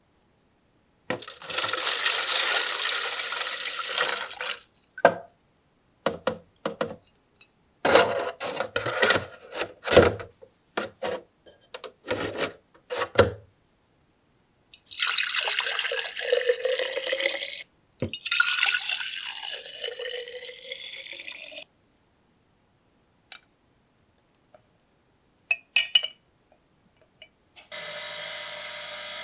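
Liquid being poured into a plastic jug and splashing and sloshing around, in several short bursts with drips and clicks. A bench grinder starts running steadily about a second before the end.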